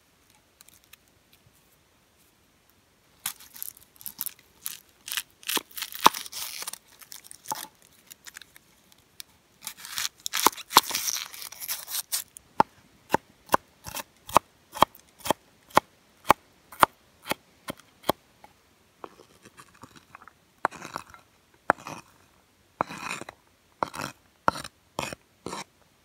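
Kitchen knife chopping an onion on a wooden cutting board: crisp slicing crunches and knocks of the blade on the board, at times in quick flurries and at times as steady strokes of about two to three a second.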